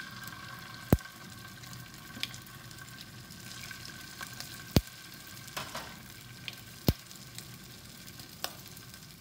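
Oil sizzling in a kadhai with a tempering of cumin, mustard seeds, dal, curry leaves and freshly added garlic chutney. A few sharp pops break through the sizzle: about a second in, near the middle and about seven seconds in.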